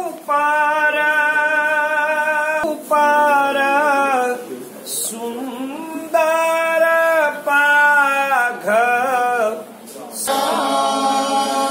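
Voices singing a devotional chant with no instruments, in phrases of long held notes with short breaks between them.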